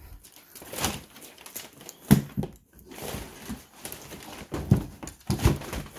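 Rustling of packing paper while a painted plastic front bumper cover is handled, with a few sharp knocks, the loudest about two seconds in and two more near the end.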